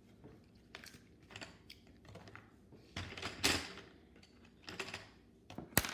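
Irregular light clicks and rustles of small objects being handled, with a longer, louder rustle about halfway through and a sharp click near the end.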